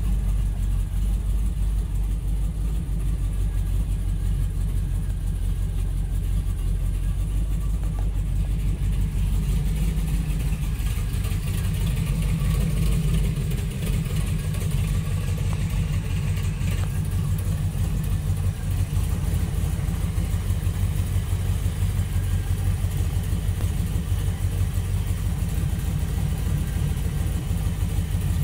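Chevy V8 engine of a 1923 Ford Model T street rod idling steadily.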